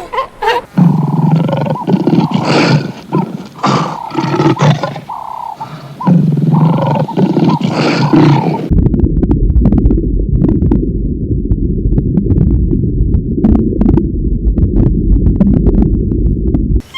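Loud, rough animal calls for about eight seconds, then an abrupt change to a steady low rumbling noise with scattered clicks.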